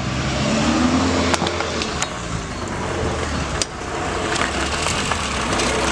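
Street noise with a vehicle engine running, broken by a few sharp knocks.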